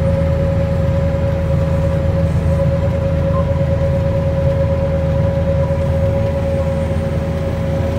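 John Deere 9420 tractor's diesel engine running steadily, heard from inside the cab, with a steady whine above the low drone.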